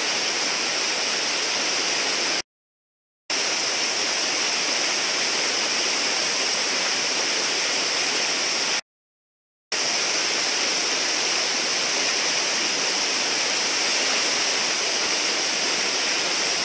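Steady rushing of whitewater pouring over a low river ledge into a foaming hole. The sound cuts out completely twice for under a second, about two and a half seconds in and about nine seconds in.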